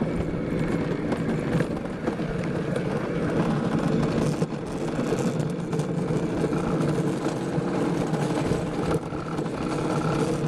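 Wheels of a luge cart rolling fast down an asphalt track, making a steady, rough rumble.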